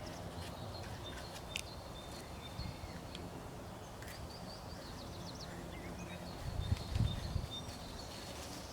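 Outdoor ambience: birds chirping with short, high calls over a steady low background rumble, with a few faint clicks and some low knocks about two-thirds of the way in.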